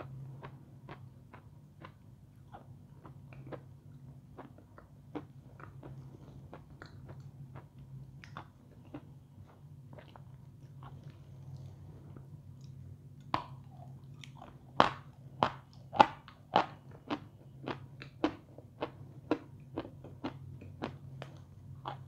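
A person biting and chewing crunchy pieces of edible chalk close to the microphone, with soft crunches at first. About two-thirds of the way in they turn into louder, regular crunches about twice a second, over a steady low hum.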